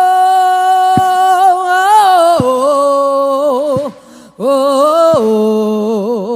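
A solo voice singing long held 'oh' notes, unaccompanied. The notes glide between pitches and waver near the ends, with two short breaths between phrases.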